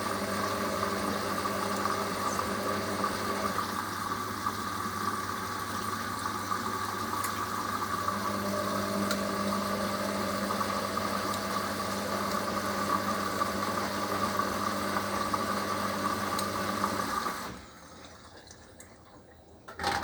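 Hoover HLW585DC washer dryer turning its drum during a rinse, a steady motor whine that shifts pitch a couple of times. The motor stops about seventeen seconds in, the point at which the machine goes on to drain.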